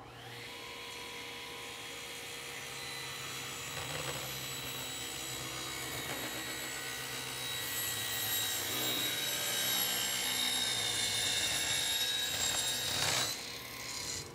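Table saw running with a steady high whine as the blade rips a walnut board to taper a table leg. The sound grows louder as the cut goes on, then drops off sharply about a second before the end as the cut finishes.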